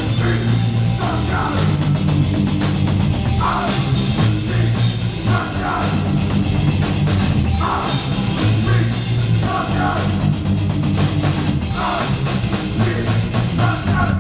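Live rock band playing loud: electric guitar, electric bass and a drum kit, with the song stopping abruptly at the very end.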